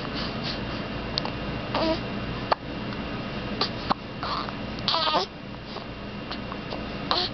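A three-week-old baby hiccuping: short, sudden hiccups spread through, with small high-pitched squeaks. The longest squeak comes about five seconds in.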